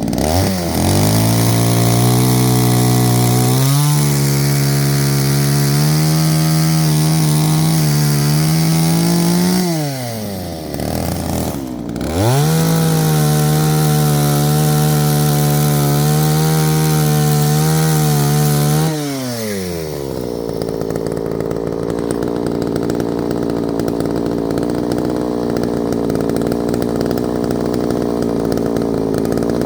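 Two-stroke chainsaw cutting firewood: the engine revs up and holds high through a cut of about nine seconds, falls off, revs again for a second cut of about seven seconds, then drops back to a lower steady running speed.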